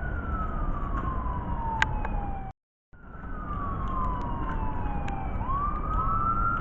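Emergency vehicle siren wailing, its pitch sliding slowly down, then sweeping back up near the end, over a steady low background rumble. The sound cuts out completely for a moment about two and a half seconds in.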